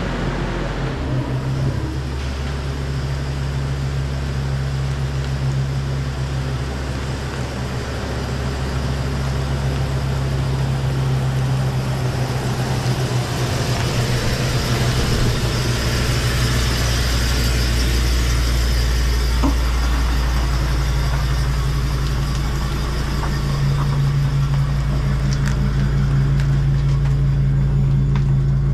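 A vehicle engine running steadily at idle, a low even hum whose pitch shifts slightly a little after halfway and again near the end.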